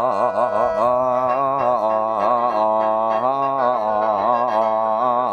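Khaen, the Isan bamboo free-reed mouth organ, playing a steady drone, while a male mor lam singer draws out a long wordless, wavering vocal line in the ornamented style of a lam opening.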